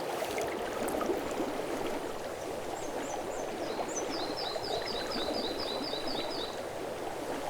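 River water running steadily. A bird sings a rapid run of short, high, repeated chirps in the middle.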